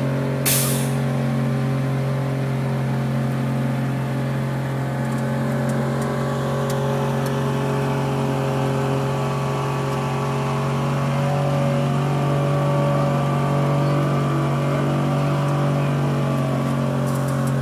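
A 75-horsepower outboard motor running steadily under way, pushing a small boat across a river, with a steady low hum. A single sharp knock sounds about half a second in.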